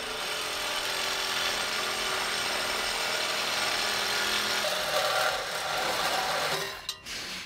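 Reciprocating saw with a metal-cutting blade sawing through a steel exhaust pipe, a steady rasping buzz. It stops about seven seconds in as the blade cuts through the pipe.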